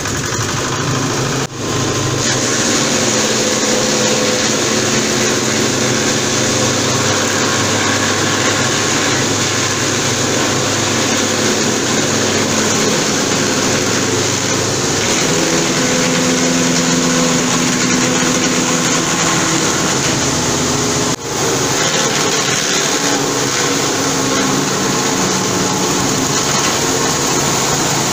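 Small single-cylinder stationary diesel engine running steadily, belt-driving a wood crusher's rotor. The sound cuts out briefly twice, about a second and a half in and about twenty-one seconds in.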